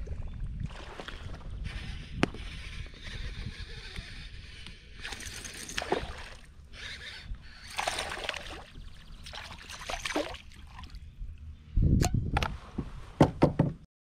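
A hooked smallmouth bass splashing and thrashing at the surface in several bursts, over a steady low rumble of wind on the microphone. Loud thumps and a few sharp knocks near the end.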